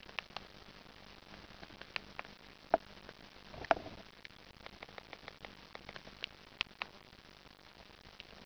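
Irregular clicks of a Sony Ericsson K800i's navigation and keypad buttons being pressed, over a steady faint hiss; two louder clicks come near the middle.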